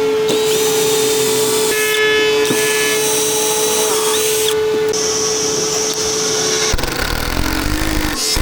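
A woodworking power tool's electric motor runs at a steady pitch with a high whine above it. It cuts off about seven seconds in, and a rough, noisy grinding follows.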